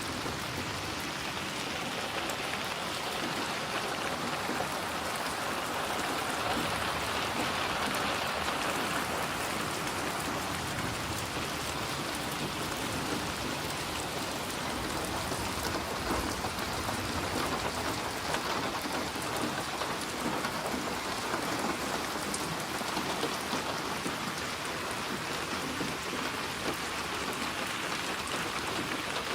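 Steady rain falling, an even hiss of many drops on a surface that does not let up.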